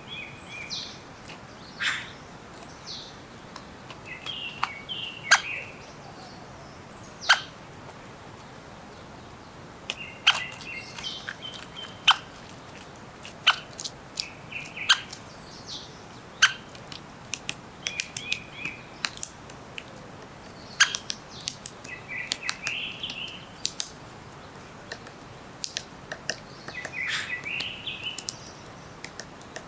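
Several songbirds chirping and calling in a spring forest: short, sharp chirps and brief call phrases come irregularly throughout, over a soft, steady background noise.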